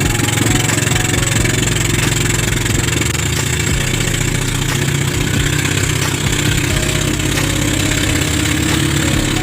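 Small motor-boat engine running steadily at constant speed.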